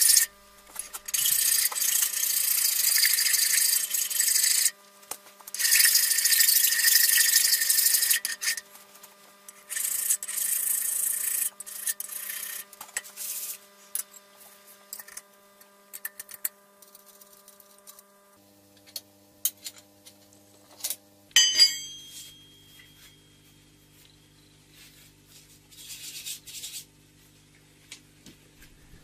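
A hand file scraping along the edges of a cast iron vice jaw to take off the sharp corners left by fly cutting: long, loud filing strokes over the first eight seconds, then lighter, shorter ones. A faint steady hum runs underneath, and about 21 seconds in there is one sharp metal clank that rings briefly.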